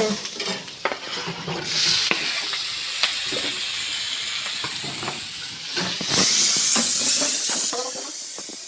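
Potato fry sizzling in hot oil in a pan while a spatula stirs it, with short scraping clicks against the pan. The sizzle swells twice, about two seconds in and again about six seconds in.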